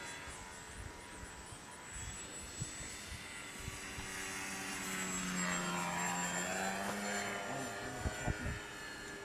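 Radio-controlled model airplane flying past: its motor and propeller drone builds over a few seconds, is loudest just past the middle, then fades away. A few light knocks near the end.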